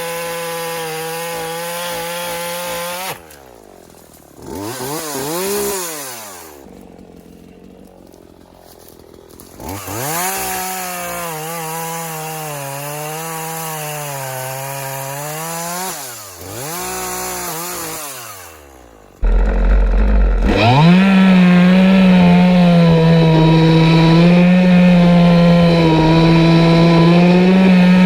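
Two-stroke engine of a Craftsman 18-inch gas chainsaw cutting wood. Its pitch wavers under load, drops to idle about three seconds in, and revs up and down in short blips between cuts. About two-thirds of the way through it jumps abruptly to a louder, steady full-throttle run.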